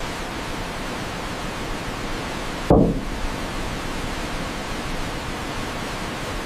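Steady rushing noise of a waterfall or fast stream, with one dull thump about three seconds in.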